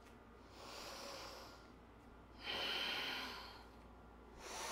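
A woman breathing audibly with the effort of lunges and squats: three quiet breaths, each about a second long and about two seconds apart, the middle one loudest.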